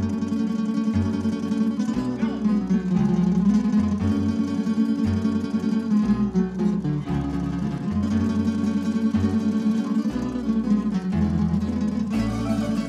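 Tamburica ensemble playing an instrumental break between verses: a plucked-string melody over chords and a stepping bass line.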